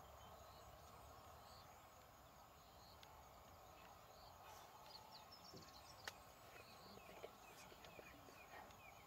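Near silence: faint bush ambience with scattered soft bird chirps and a single sharp click about six seconds in.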